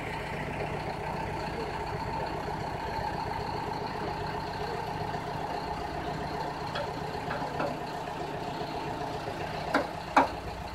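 Miniature-railway diesel locomotive idling steadily while it is turned on a hand-pushed turntable. Two sharp metal clanks come near the end.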